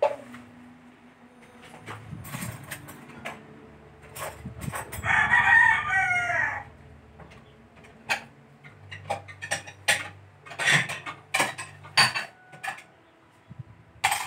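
A rooster crows once, a single long call about five seconds in. Scattered short clinks of utensils on plates come before and after it.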